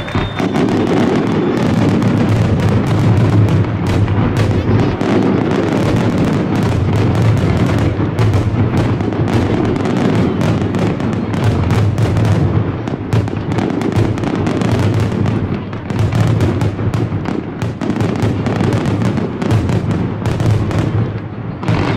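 Aerial fireworks shells bursting in a dense, unbroken barrage of bangs, many reports overlapping with hardly a gap.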